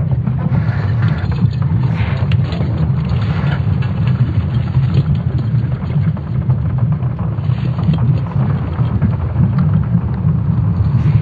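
A steady low rumble with a faint hiss above it and a few faint scattered clicks.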